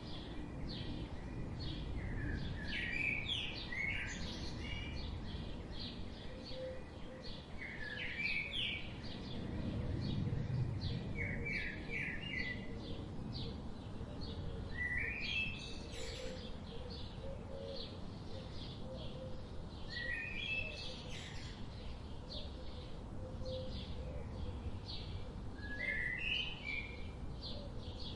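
Several wild birds chirping and calling, with a short rising phrase repeated every few seconds over many quicker chirps, above a steady low rumble.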